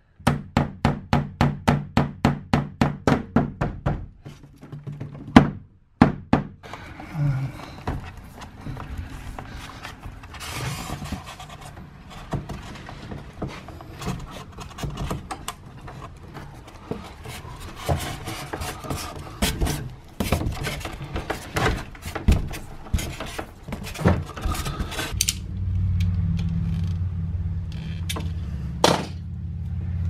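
Claw hammer tapping a cable staple into a wooden stud: quick light blows about five a second for some four seconds, then one hard blow. Scattered clicks and rustling follow as electrical cable is handled along the wall framing, and a low steady rumble comes in near the end.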